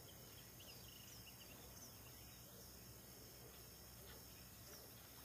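Near silence: faint outdoor background with a steady low hum and a few short, faint high chirps.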